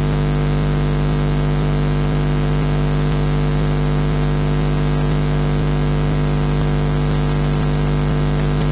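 Steady electrical hum with a stack of overtones over a hiss, with faint crackles scattered through it: interference on a night nest camera's audio feed.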